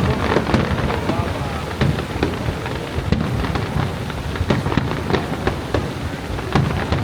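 Fireworks going off in quick succession: many sharp bangs and crackles, several a second, over the steady roar of Niagara Falls.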